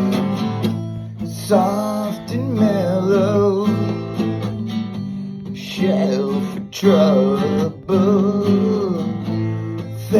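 Acoustic guitar strumming chords in a song intro, with a wavering melody line over it twice, a few seconds each.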